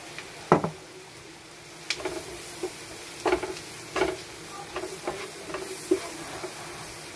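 A spatula stirring flour into sizzling butter, garlic and onion in a nonstick frying pan, the start of a roux: a steady sizzle with repeated scrapes and taps of the spatula on the pan from about two seconds in. A single sharp knock about half a second in is the loudest sound.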